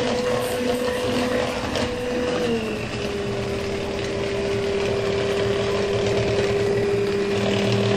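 Electric hand mixer running steadily, its beaters whisking chocolate cake batter in a plastic bowl; the motor's whine drops a little in pitch about two and a half seconds in.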